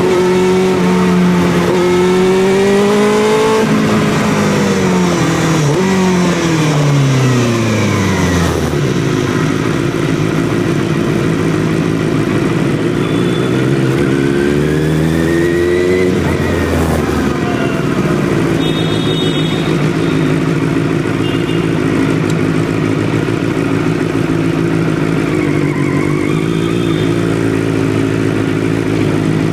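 Benelli 600i inline-four motorcycle engine through a loud exhaust, under way: it holds steady revs, then drops off as the bike slows. About halfway through it revs up once and falls back, then settles into a steady low run. Short high beeps come in near the two-thirds mark.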